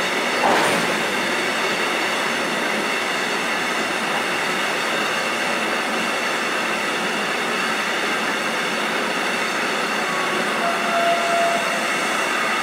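Empty car-carrier freight wagons rolling past at speed: a steady rumble and rattle of wheels on rail. There is a brief louder clank about half a second in and a short wheel squeal near the end as the last wagons pass.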